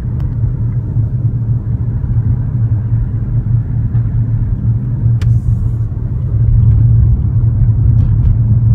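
Steady low rumble of a car's engine and road noise heard from inside the cabin while driving, growing a little louder about six and a half seconds in. A single sharp click a little after five seconds.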